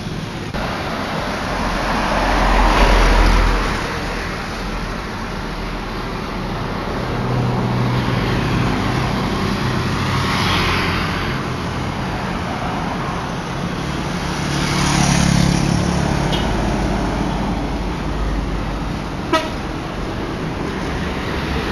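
Road traffic passing close by: several vehicles go by one after another, their engine and tyre noise swelling and fading, with a short horn toot near the end.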